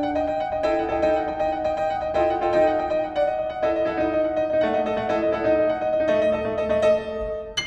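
Keyboard music, piano-like, with notes struck one after another over a held note.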